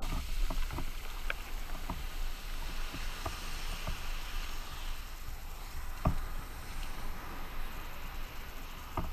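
Breaking surf washing around a waterproof-housed camera at the water's edge: a steady low rumble and hiss, broken by scattered sharp knocks and splashes, the strongest about six seconds in and again near the end.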